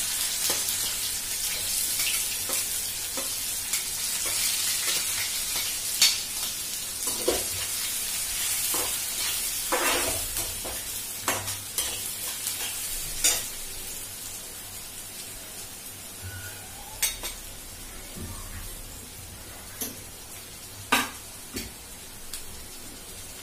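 Chopped onions frying in hot oil with mustard and cumin seeds, the sizzle strong at first and fading gradually. A slotted metal spoon clinks and scrapes against the pan now and then as they are stirred.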